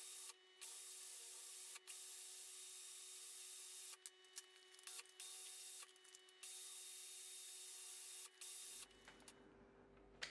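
Cordless drill motor whining steadily as it spins a chucked bolt, with an abrasive strip held against the bolt head making a hissing rub. The rub comes in long stretches with short breaks and stops near the end.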